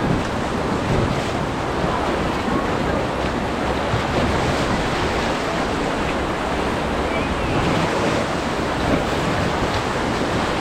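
Steady rush of white-water river rapids around a raft, with wind buffeting the microphone.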